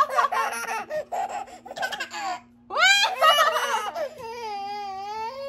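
Babies laughing and squealing in short high-pitched bursts, then one long drawn-out baby "aaah" held for about a second and a half near the end.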